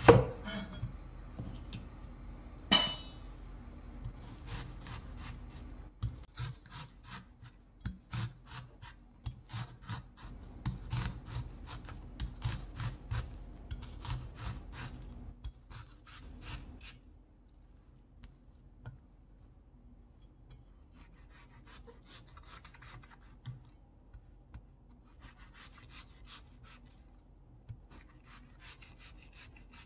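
Kitchen knife slicing an onion on a wooden cutting board: a sharp knock of the blade on the board at the start and again about three seconds in, then a run of even slicing strokes at about two a second, growing fainter and sparser in the second half.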